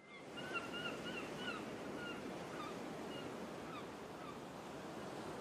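Ambient water with a steady wash, fading in at the start, and over it short bird calls: a quick cluster in the first second and a half, then scattered single calls.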